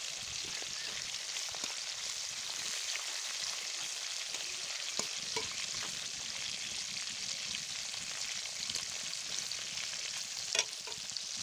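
Hilsa fish pieces, rubbed with salt and turmeric, sizzling in hot oil in a metal wok: a steady frying hiss as the first side fries, with a few light taps of the spatula against the pan.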